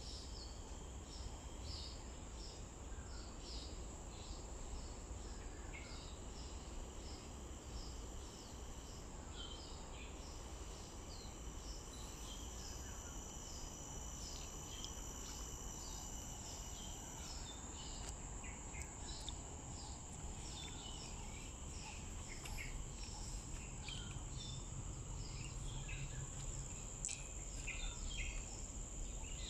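Insects droning in one continuous high tone, with many short bird chirps throughout and a low steady rumble underneath.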